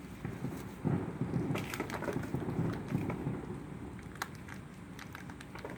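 Consumer firework crackling with a rapid stream of small pops and snaps. The crackle thins out after about three seconds to scattered snaps, with one sharper pop a little past four seconds.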